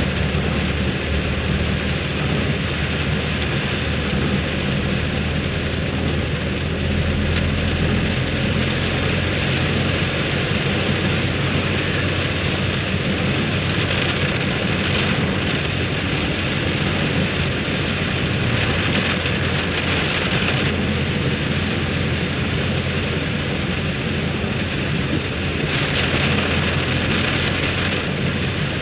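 Heavy rain pelting a car's roof and windshield, heard from inside the cabin over a steady low engine and road hum. The rain swells louder a few times.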